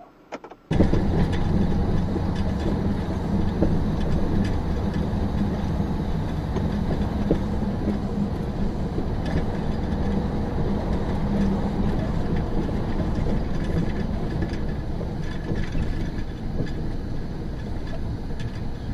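A vehicle running steadily, engine and road rumble with a low hum and scattered small knocks. It starts suddenly just under a second in, and no single loud impact stands out.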